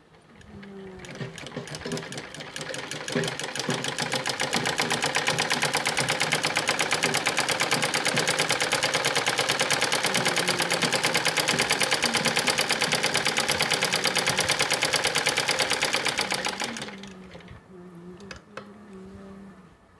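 Domestic sewing machine stitching fabric at a long stitch length to gather a frill, in a fast, even run of needle strokes. It speeds up over the first few seconds, runs steadily, then slows and stops near the end, followed by a few faint clicks.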